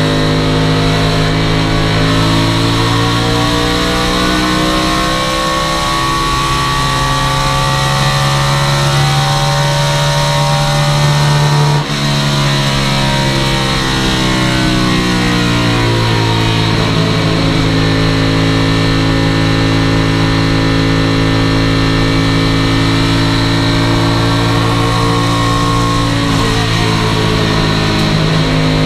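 Stock car's V8 engine at racing speed, heard from inside the cockpit, its pitch slowly rising and falling as the car laps the oval, with a brief drop in level about twelve seconds in.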